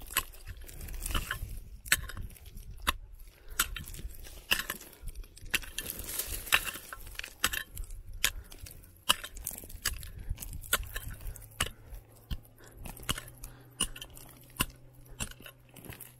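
Quartz crystals and stones knocking, clinking and scraping together as they are dug out and handled, in irregular sharp clicks one to a few a second. A faint steady low hum comes in about halfway through.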